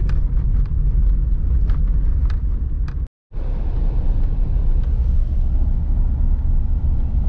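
Steady low rumble of road noise inside a truck's cab as it drives over a snow-packed gravel road, with small rattles and ticks. The sound cuts out completely for a moment about three seconds in.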